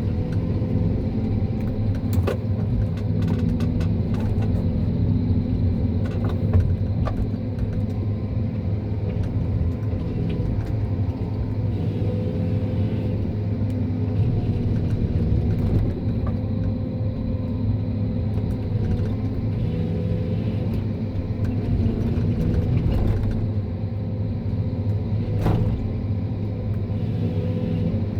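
John Deere 1270G eight-wheel forestry harvester's diesel engine running steadily, with a few sharp knocks about two, six and a half and twenty-five seconds in.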